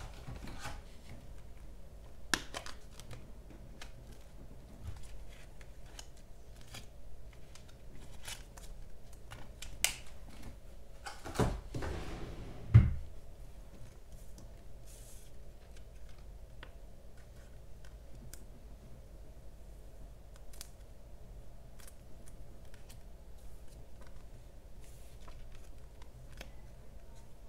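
Photocards and clear plastic card sleeves being handled: scattered light taps and rustles, with a louder plastic crinkle and a knock around twelve seconds in.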